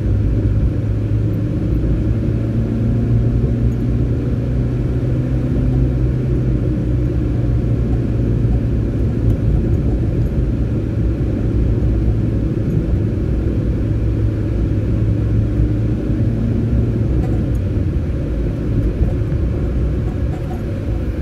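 A car being driven, heard from inside the cabin: a steady low rumble of engine and road noise.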